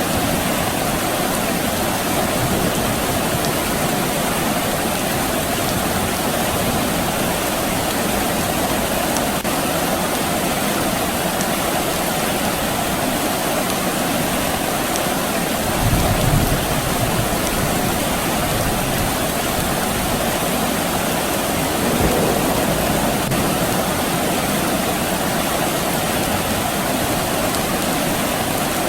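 Steady rain falling, an even hiss. A brief low rumble comes a little past halfway, and a fainter one a few seconds later.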